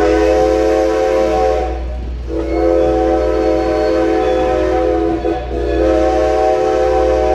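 Steam locomotive's chime whistle sounding in long blasts, one ending about two seconds in, a second of about three seconds, and a third starting near the end, over a steady low rumble.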